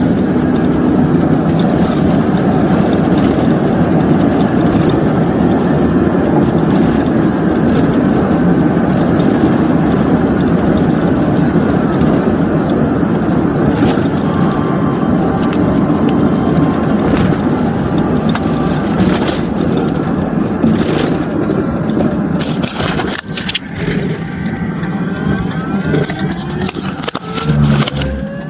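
Steady vehicle and road noise, a loud low rumble, with scattered sharp clicks and knocks in the second half.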